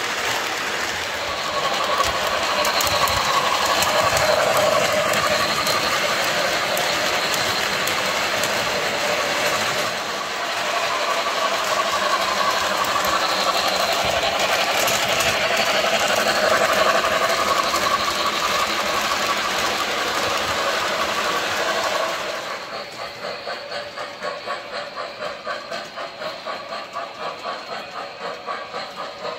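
O-gauge MTH RailKing Commodore Vanderbilt model steam locomotive and passenger cars running on the track: loud, steady running noise from the wheels and the locomotive's sound system. About 22 seconds in it drops quieter to an even chuffing of about two beats a second.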